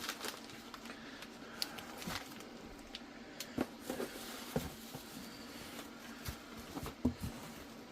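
Rustling and scattered light clicks and taps of a cardboard box and blister-carded die-cast toy cars being handled.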